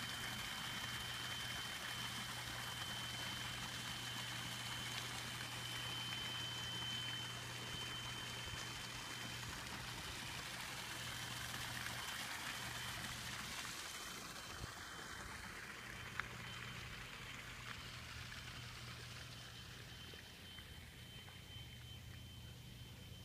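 Small garden waterfall spilling over stacked rocks into a pond: a steady watery hiss that grows fainter over the last several seconds. A thin steady high-pitched tone runs underneath.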